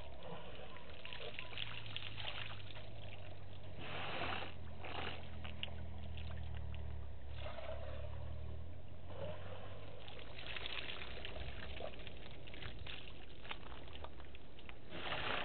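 African elephant bull drinking: water from its trunk gushing into its mouth and spilling back into the waterhole in several splashy bursts. A low steady drone runs under the first half and stops a little past the middle.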